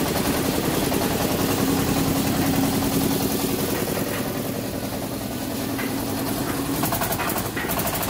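The portable concrete mixer's small engine running steadily at idle, a rapid even chugging with a steady hum.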